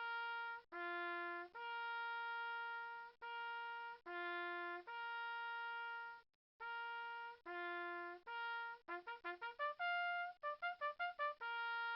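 Outro music: a solo trumpet-like melody of held notes with short breaks between them. Near the end it breaks into a quick run of short notes, then settles on a final held note.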